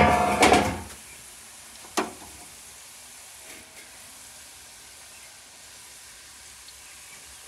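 Hot oil in a kadhai sizzling as strands of dough are pressed into it from a hand-held pakodi press. It is loud for about the first second, with a single sharp tap about two seconds in, then settles to a steady, quiet sizzle.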